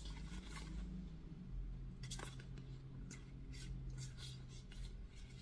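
Small album photocards being handled and shuffled in the hands: faint, irregular light clicks and scrapes of card against card, over a low steady hum.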